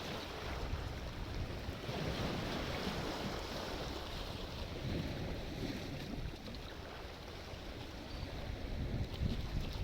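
Sea waves washing continuously, easing a little about six seconds in and swelling again near the end, with a low rumble of wind on the microphone.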